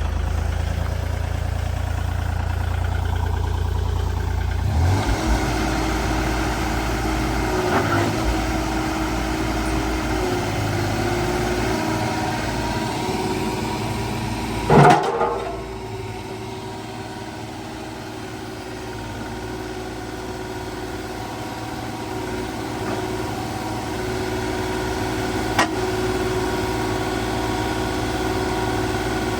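Kubota KX040 mini excavator's diesel engine running steadily. About halfway there is one loud clank, after which the engine sound drops and then slowly rises again. There is a smaller sharp click near the end.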